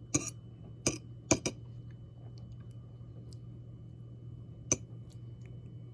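A few light clicks of a utensil against a dish as pie filling is sorted: four in quick succession, then one more near the end, over a faint steady low hum.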